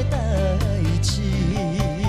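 Male vocalist singing a Taiwanese Hokkien ballad over band accompaniment, holding a long note with an even vibrato in the second half.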